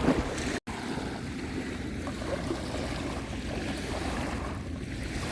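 Steady wind and surf noise at the shoreline, the wind rumbling on the microphone, with a brief dropout about half a second in.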